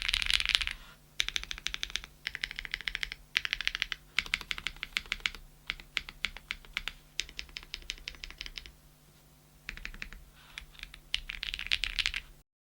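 Typing on a Graystudio Space65 custom mechanical keyboard with TTC Holy Panda tactile switches, GMK keycaps and a POM plate: runs of quick, poppy, clacky keystrokes in bursts with short pauses. The typing stops abruptly near the end.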